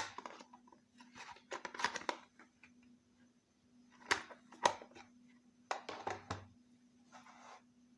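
Hands handling small toy pieces and packaging: scattered light clicks and short rustles in clusters a second or two apart, over a faint steady hum.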